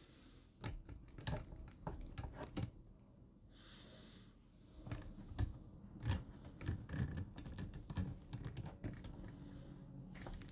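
Irregular small clicks and taps of hard plastic parts being handled: the lightsaber hilts and hands of a 1/6 scale action figure being fitted together, with a short soft rustle about four seconds in.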